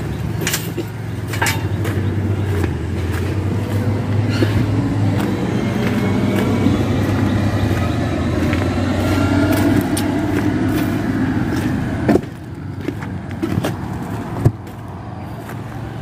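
Road traffic: motor vehicle engine hum and tyre noise building up over about ten seconds, then dropping away suddenly about twelve seconds in.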